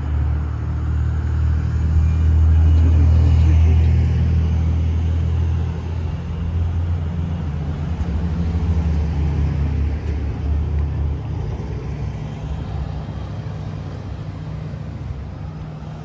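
Low engine rumble of a motor vehicle close by, loudest a few seconds in and then slowly fading away.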